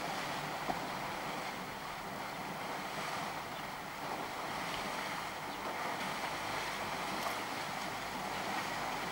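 Steady splashing and sloshing of water as a herd of African elephants bathes and rolls in the shallows of a waterhole.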